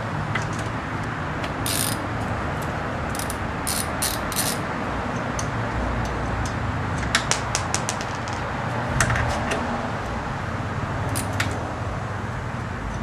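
Scattered metallic clicks and clinks of a socket wrench working a car wheel's lug nuts loose, over a steady hiss.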